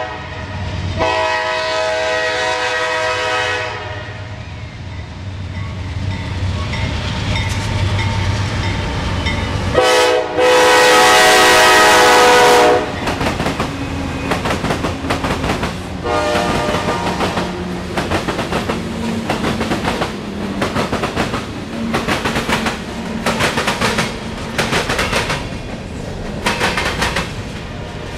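CSX freight train passing close by: the locomotive's air horn sounds twice, a blast about a second in and a louder one about ten seconds in, over the low engine rumble. Then the wheels of the passing cars clack over the rail joints.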